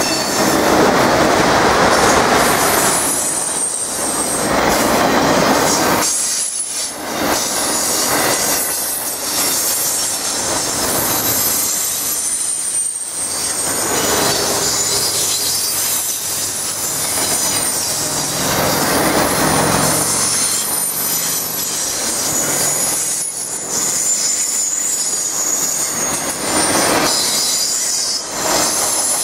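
Autorack freight cars rolling past close by: a steady rumble and rattle of steel wheels on rail, with high, wavering wheel squeal running over it.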